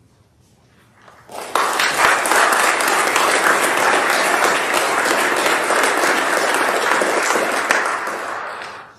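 Congregation applauding: a round of clapping that starts about a second in and dies away just before the end.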